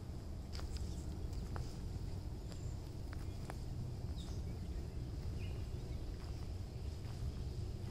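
Footsteps on wood-chip mulch, with a few short bird chirps over a steady low outdoor rumble.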